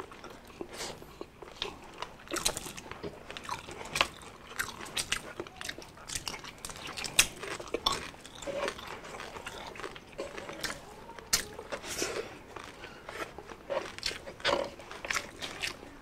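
People eating by hand, with irregular crunching bites and chewing of crispy fried food such as chicharon bulaklak.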